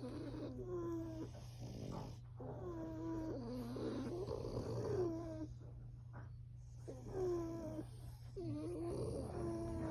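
A sleeping pet snoring in slow, rhythmic breaths, each carrying a wavering, whistle-like pitched tone, over a steady low hum.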